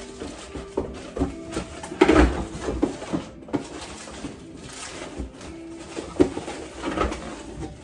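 Clutter being handled and sorted on a table: paper and plastic packaging rustling and crinkling, with small knocks of items being picked up and set down, the loudest about two seconds in.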